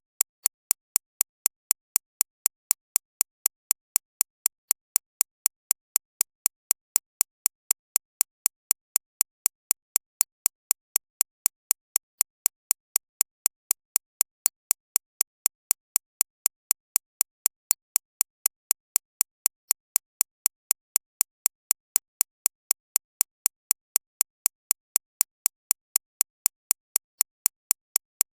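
Synthesized recreation of a shockwave therapy (ESWT) machine's impacts: a steady, even train of sharp clicks, about three a second, strongest in the high treble. It is tuned to emphasise roughly 6.5 to 13.5 kHz as a tinnitus-masking sound.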